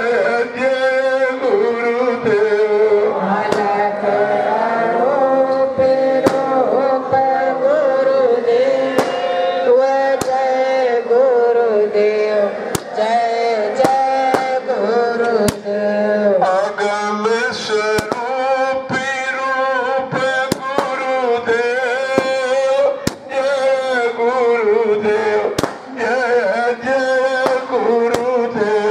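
Devotional hymn sung as a slow, wavering melody, with a dozen or so sharp firecracker pops at irregular intervals through it.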